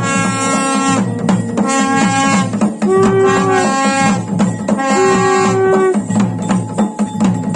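Music: a wind instrument plays a melody of long held notes over a steady, fast drum beat.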